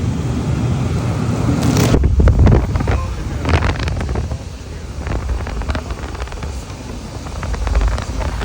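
Dometic rooftop RV air conditioner running, its air blowing from the ceiling vents across the microphone as a steady low rumble. A few knocks and rustles come about two seconds in and again a little later.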